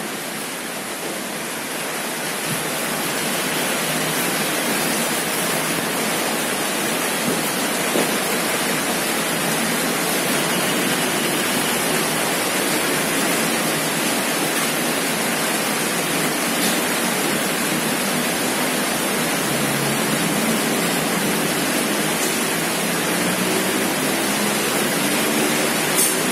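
Steady rushing noise of running water, even and unbroken throughout.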